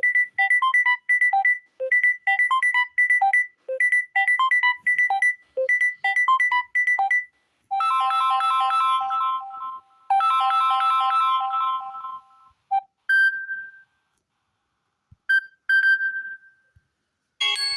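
Phone ringtones and notification tones played one after another. First comes a fast, repeating electronic melody of short beeps for about seven seconds, then two held chord-like tones, then a few short single chimes that fade out near the end.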